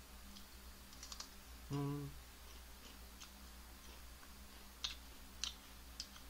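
Faint crunching of potato chips being chewed: a few scattered crunches early on, then sharp crunches about every half second in the second half. A short hummed "mm" comes about two seconds in.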